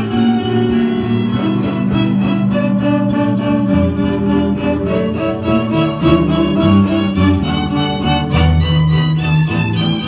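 A small string ensemble playing music: violin and cellos, including solid-body electric cellos amplified through small amps, bowing held notes that change every second or so.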